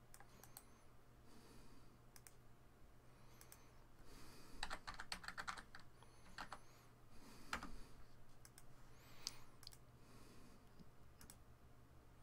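Faint computer keyboard typing: scattered single keystrokes, with a quick run of keys about four to five seconds in, over a low steady hum.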